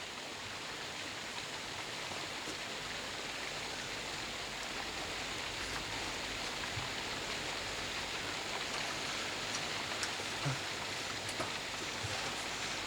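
A steady, even hiss with no speech, and a few faint low thuds about seven, ten and twelve seconds in.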